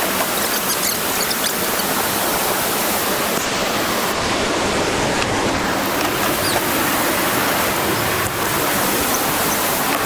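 Steady rush of a large whitewater rapid: an even, loud hiss of water pouring down a steep boulder drop.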